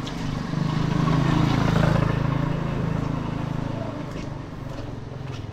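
A motor vehicle's engine passing close by, growing louder for about two seconds and then fading away, over a steady hiss.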